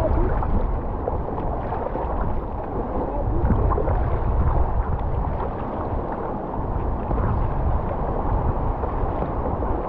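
River water rushing and gurgling around a plastic kayak's hull as it is paddled down a shallow current, with a low rumble of wind on the microphone.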